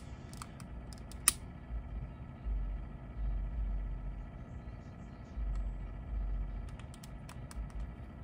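A lighter being clicked to light a jar candle: two sharp clicks about a second apart near the start, then a few fainter clicks near the end, with low rumbling handling noise in between.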